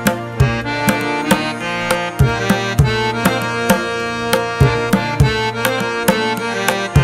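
Background instrumental music with rhythmic hand-drum strikes over sustained melodic tones.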